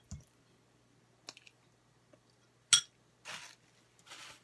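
Plastic fork clinking against a ceramic plate: a few sharp clicks, the loudest about two thirds of the way in with a short ring. Soft chewing follows near the end.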